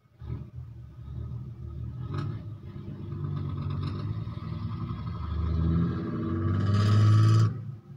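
A low rumble that grows louder over several seconds, with a harsh hiss joining it near the end, then cuts off abruptly.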